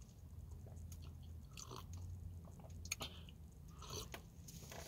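Faint mouth sounds of a person drinking from a cup: soft sips and swallows, a couple of them standing out about two and four seconds in, over a low steady hum.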